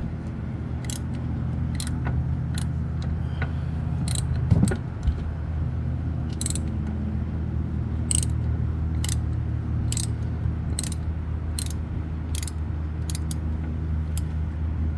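Ratchet wrench clicking in short strokes, about one click a second, loosening the oil filter housing, with a louder knock about four and a half seconds in, over a steady low hum.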